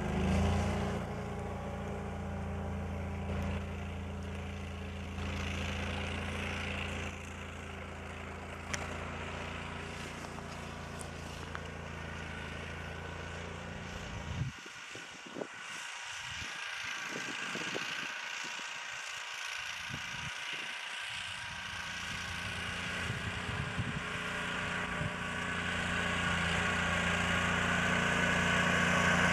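Engine of a tracked Argo amphibious ATV running steadily as it drives through deep snow. The low engine hum drops away for several seconds around the middle, then returns and gets louder near the end as the vehicle comes closer.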